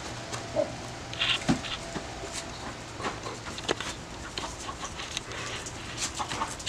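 Hens clucking in short, scattered calls as they are chased, with footsteps and scuffs on concrete.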